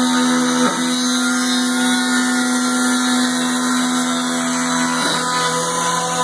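Home-built CNC milling machine running: a steady, loud motor whine with two brief dips in pitch, about a second in and near the end.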